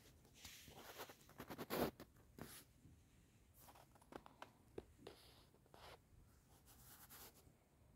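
Faint scratching and rustling of a fleece blanket as a kitten wriggles on its back and paws at it, with a louder run of scratches about two seconds in and scattered softer ones after.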